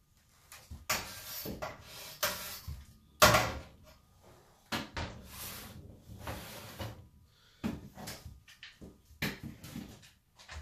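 Glass doors of a snake enclosure cabinet knocking and clattering as they are handled and opened, with scattered bumps and scrapes inside the enclosure. The loudest clatter comes about three seconds in.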